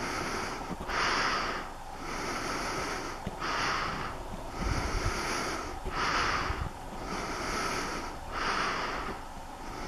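A person breathing in and out through the nose close to the microphone, a regular hiss of alternating longer and shorter breaths about one cycle every two and a half seconds.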